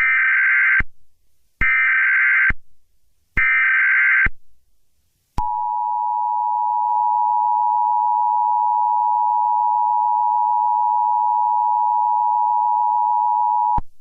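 Emergency Alert System header: three short bursts of shrill digital data tones, each just under a second with about a second between them, then the two-tone EAS attention signal, a steady dual tone held about eight seconds before cutting off. It announces that an emergency broadcast message follows.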